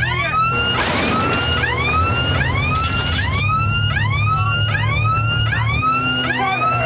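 A siren sounding in quick rising whoops, about two a second, over a vehicle engine running. This is the alarm of a chasing security van.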